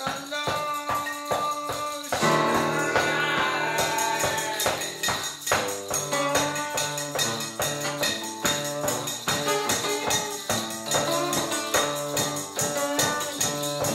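Live acoustic guitar music with a steady, fast jingling beat and no singing. A denser cluster of held notes comes in about two seconds in.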